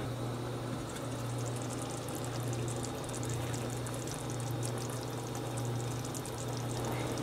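Mexican rice simmering on low heat in a pot: the tomato broth bubbles and crackles finely through the rice, over a steady low hum.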